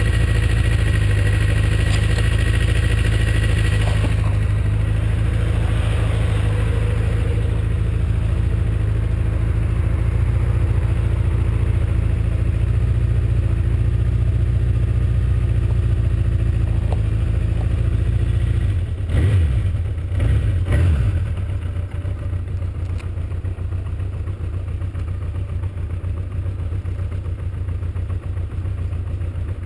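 Honda CB750's air-cooled inline-four idling steadily on the stationary bike. Two short blips of the throttle come about 19 and 21 seconds in, and the engine then settles to a quieter idle.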